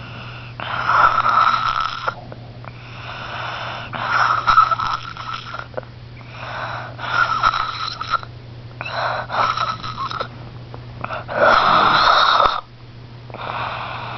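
Snoring: about seven hissing breaths, each a second or two long, coming roughly every two seconds, with the loudest one near the end.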